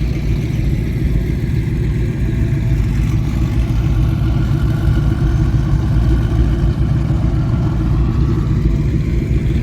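High-performance powerboat engines idling, a steady low rumble.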